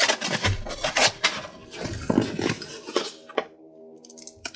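A small cardboard box being opened and handled on a wooden desk: the lid lifted off, with a run of cardboard scrapes, rustles and light knocks that die down to a few faint ticks near the end.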